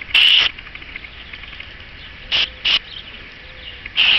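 Aerosol electronic contact cleaner being sprayed onto an electrical connector in short, loud hissing bursts: one right at the start, two quick ones a little past the middle and one at the end.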